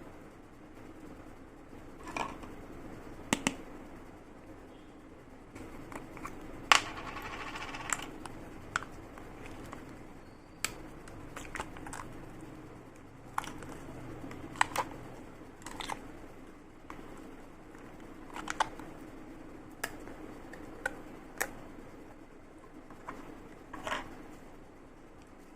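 Slime or clay being handled and pressed, giving irregular sharp clicks and pops, over a low steady hum.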